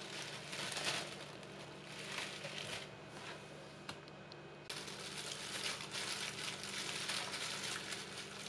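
Plastic cling film crinkling and rustling as it is stretched over a plate of mooncakes. About five seconds in, it gives way to a steady hiss with light rustling.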